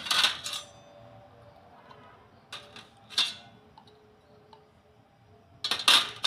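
Small stainless steel bowls clinking against a steel plate as they are handled and set down: a few sharp metallic knocks, the loudest cluster near the end, with a faint ring after each.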